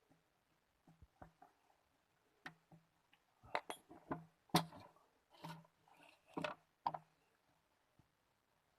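Small hard parts and tools clinking and knocking as a two-stroke grass trimmer engine is worked on by hand: a string of irregular clicks, busiest in the middle.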